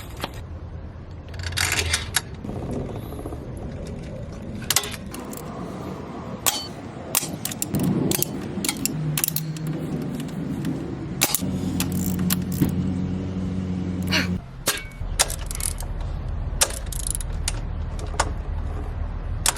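Metal hand tools clinking and knocking against bolts and the motorcycle frame while a stubborn bolt is worked with a wrench, in scattered sharp clicks. A low steady hum comes in for a few seconds past the middle.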